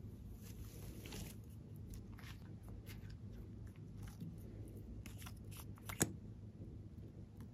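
Faint close-up handling sounds: stiff tulle fabric rustling at first, then small clicks and taps from handling a liquid lipstick tube and its applicator wand over slime. One sharp click comes about six seconds in.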